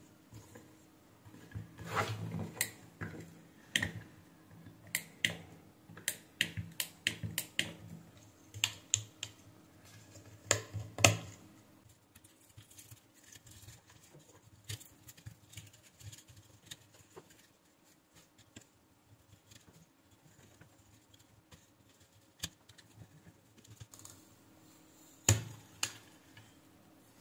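Irregular clicks and taps of fingers handling a digital bathroom scale's load cells, wiring and circuit board. A dense run of clicks with a faint low hum fills the first half, then the taps thin out, with one louder knock near the end.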